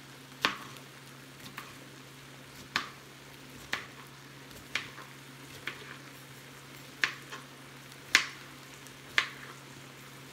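Kitchen knife chopping a cucumber on a cutting board: sharp separate chops, about one a second and a little uneven. Pork chops sizzle faintly on a flat grill, and a steady low hum runs under it all.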